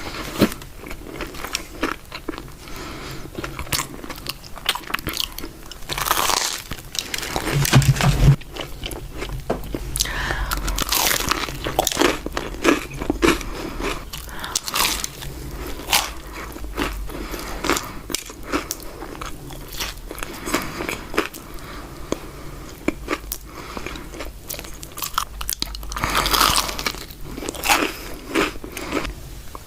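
Close-miked crunchy biting and chewing of a fried Korean corn dog, with crisp cracks from the crust over and over between softer chewing.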